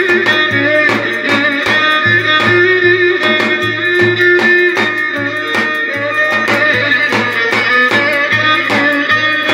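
Turkish Black Sea folk dance tune (oyun havası) played on melody instruments over a steady, quick beat.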